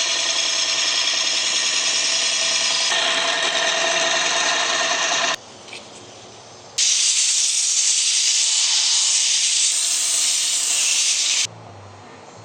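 Woodworking power tool running in two edited stretches, each cut off abruptly. The first is a running tool with a steady whine, cut off about five seconds in. After a short quieter gap comes a loud, high, hiss-like noise, ending suddenly about a second before the end.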